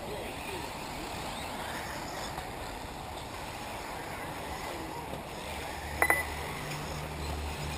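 Electric 1/8-scale RC off-road buggies running on a dirt track: faint motor whines rising and falling over a steady noisy wash. About six seconds in come a sharp click and a short high beep, with a low hum underneath.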